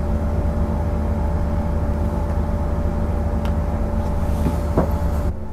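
Coach's diesel engine idling steadily, with a thin steady whine above it. The sound cuts off suddenly near the end.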